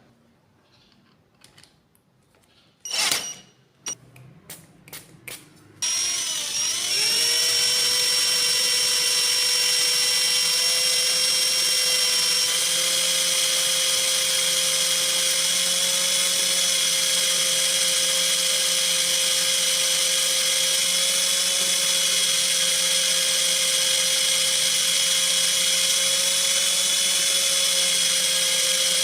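A few clicks and knocks, one sharper than the rest, then a small electric power tool is switched on about six seconds in. Its pitch climbs as it spins up within a second, and then it runs steadily with a high hiss.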